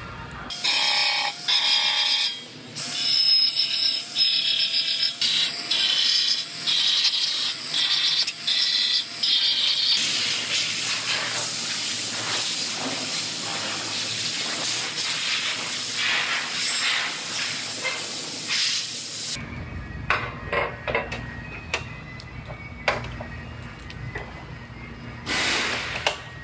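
Aerosol spray can hissing in one long continuous spray of about nine seconds, on the new sheet-metal structure being fitted. Before it comes a run of short, shrill bursts. After it come scattered clicks and knocks of metal panels being handled and clamped.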